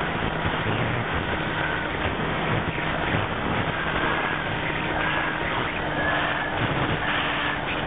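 RC aircraft's motor and propeller running steadily in flight, heard from the onboard camera with wind rush over it. A faint higher whine fades in and out as the throttle shifts.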